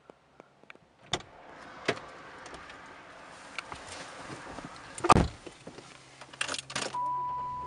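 A car door opened and a person getting into the seat, with a few knocks and rustles, then the door shutting with a heavy thud about five seconds in. A quick run of sharp clicks follows, and near the end a steady high tone comes in.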